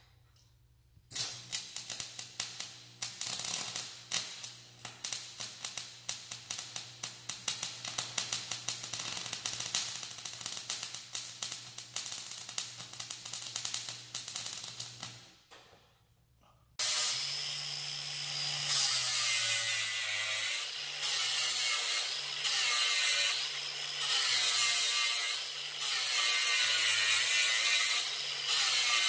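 Electric arc welding on steel brackets: an irregular crackle over a steady low hum for about fourteen seconds, stopping about halfway through. After a short pause, a handheld angle grinder runs loud and high-pitched on the steel, in short stretches with brief dips every second or two.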